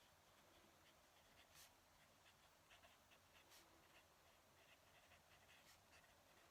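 Fountain pen nib scratching faintly across paper in short, quick strokes, with a couple of slightly sharper strokes.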